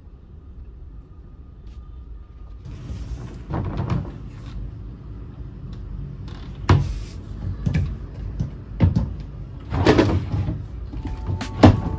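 Wooden wardrobe doors and a drawer being opened and shut: a run of about six knocks and bumps with rustling in between. Music comes in about a second before the end.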